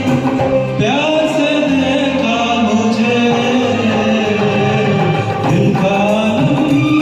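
A man singing a Hindi film song over a karaoke backing track, holding long, sliding notes.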